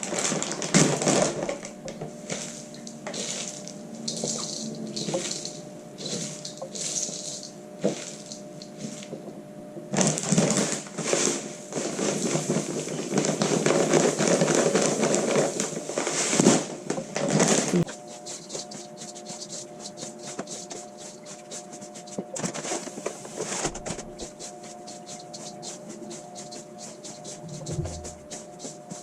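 Birdseed poured and scattered into a bowl of dry food: a dense rattling hiss of many small seeds, heaviest from about ten to eighteen seconds in, then thinning to lighter scattered ticks.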